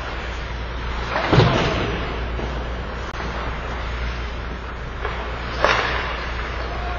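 Ice hockey play in an echoing rink: two sharp knocks, a loud one about a second in and another near the end, over a steady low hum.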